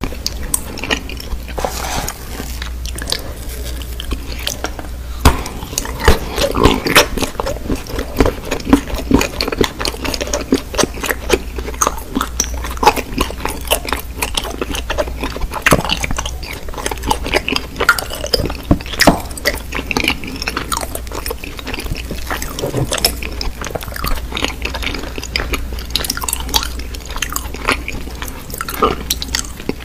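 Close-miked chewing and biting, a person eating a soap-bar-shaped piece dipped in ketchup, with many sharp mouth clicks over a steady low hum.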